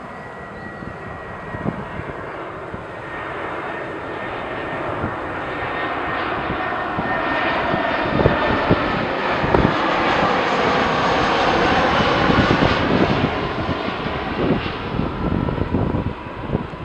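Airbus A320-214's two CFM56-5B turbofan engines on final approach with landing gear down, growing louder as the jet passes close, loudest about three quarters of the way through, then easing as it flies on. Wind buffets the microphone now and then.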